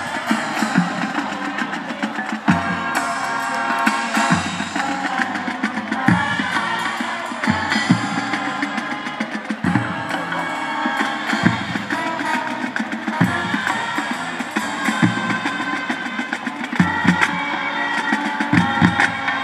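Marching band playing: brass sections sounding sustained chords over a drumline, with low drum hits about every two seconds.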